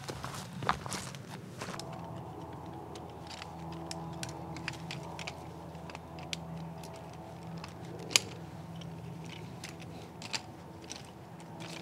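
Light clicks and clacks of a folding camp chair's pole frame being snapped together and fitted into its hubs, one sharper knock about eight seconds in.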